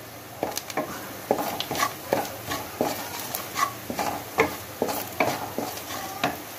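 A wooden spatula stirring and scraping fried onion mixture around an aluminium karahi, making short knocks and scrapes about three times a second.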